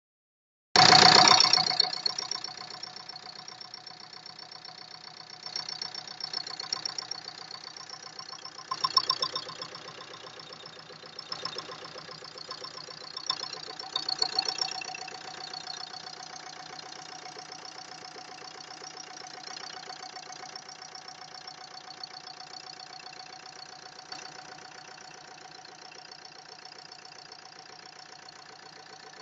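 Engine running with a fast, even knocking tick, loudest just after it begins about a second in, then settling, with several brief swells in speed. The owner asks whether the knock is the valves striking the pistons.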